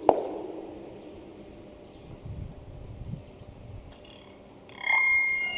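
The Whelen WPS-2802 electronic siren's tone cuts off sharply at the start and its echo dies away over about a second, leaving faint insect chirping. Near the end, the siren's speakers sound a loud electronic alert tone, the lead-in to the post-test voice message.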